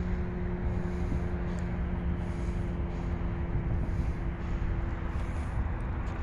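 Distant jet airliner rumble: a steady noisy roar with a low hum held through it that fades out near the end.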